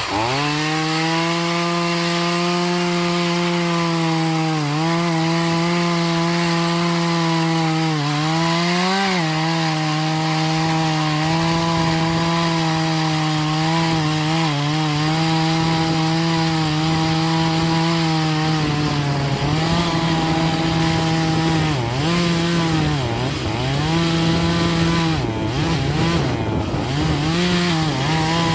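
Troy-Bilt TB4218 42cc two-stroke chainsaw revving up and held at high throttle while cutting oak. Its engine note dips briefly each time the chain bites under load, a few times early on and repeatedly in the last ten seconds.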